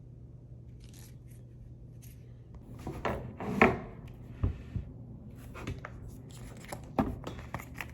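Cardboard and paper packaging being handled and opened by hand: quiet at first, then rustling with a series of sharp taps and clicks from about three seconds in.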